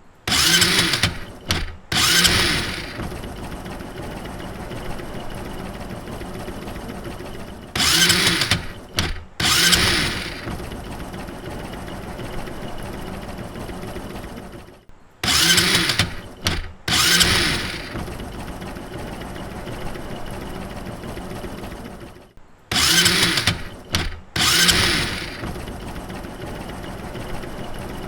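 A small motorcycle engine is started on its electric starter four times. Each time there is a short loud burst as it cranks and catches, then a second rev, then a steady idle for about five seconds before it stops.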